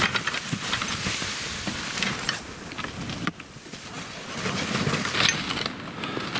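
Truck driving slowly down a rough, overgrown trail: a steady rushing noise dotted with many small clicks and scrapes. It cuts off abruptly about three seconds in, and similar noise returns.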